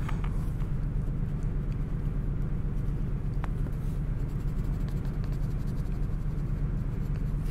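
Steady low hum under faint, quick scratching and tapping of a white colored pencil shading on grey cereal-box cardboard.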